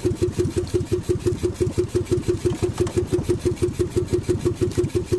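Small outrigger-boat engine running at a steady speed, a rapid even chugging of about seven beats a second.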